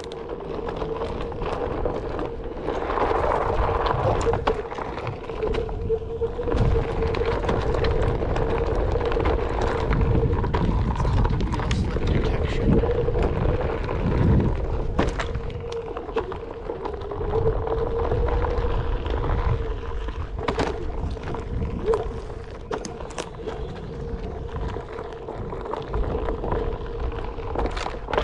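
A small board rolling down a dirt trail: a low rumble with scattered clicks and knocks from the wheels on packed earth and debris, wind on the microphone, and a steady hum that wavers slightly in pitch.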